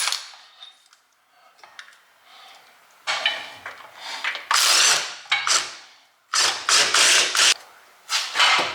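A power tool working the last two rear-differential bolts in several short runs, with sharp metal clicks in between.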